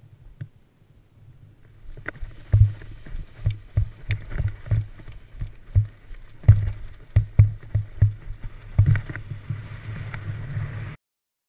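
Crunching footsteps in snow, about two to three a second, as a paraglider pilot runs to take off, over a low steady rumble. The sound stops abruptly near the end.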